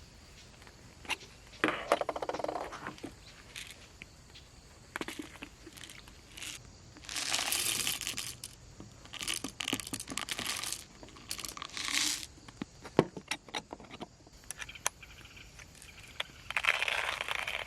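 Crinkly packaging being crumpled and torn by hand in several bouts, with sharp clicks and taps between them.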